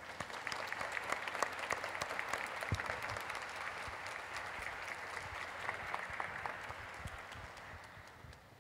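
Audience applauding: dense, steady clapping that sets in at once and fades out near the end.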